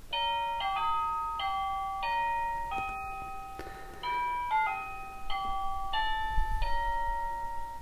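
Carlon RC3250 plug-in wireless door chime receiver playing its electronic melody after the push button is pressed: a tune of clear single notes, played through twice with a short pause between.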